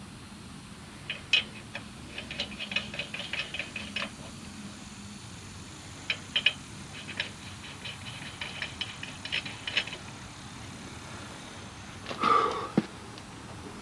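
Light metallic clicks and rattles of lug nuts and wheel hardware being handled, in two runs of quick irregular ticks, followed by a brief louder noise near the end.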